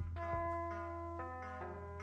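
Sustained instrument notes, several entering one after another and ringing on together, over a steady low hum; the notes are being given for the players to tune or pitch to.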